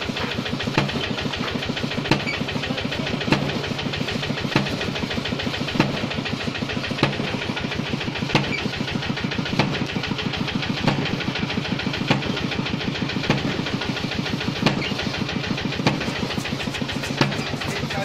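Wooden pestle of a foot-operated lever rice pounder thudding into its mortar about once every second and a quarter, pounding roasted rice flat for ambok. Underneath, a small engine runs steadily with a fast chugging pulse.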